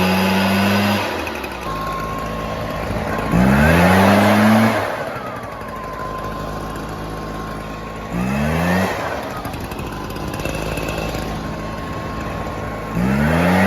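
Stihl BR 420C Magnum backpack blower's two-stroke engine running just after a cold start in 20-degree cold. It idles, and the throttle is opened three times: a rising rev held for about a second and a half at about 3 s, a shorter one at about 8 s, and another near the end, each dropping back to idle.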